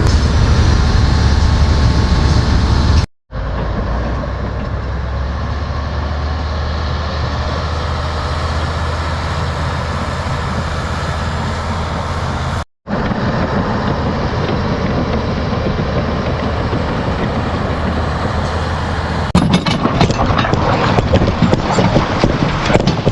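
The engine of a heavy tile-drainage machine running steadily with a strong low hum, cut off abruptly twice. About nineteen seconds in, the sound changes to a busier rattling and clattering.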